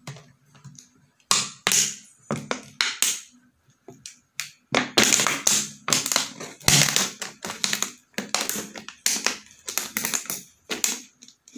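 Empty plastic water bottle being cut with a utility knife, the thin plastic crackling in short irregular bursts as the blade works around it and the bottle is held down.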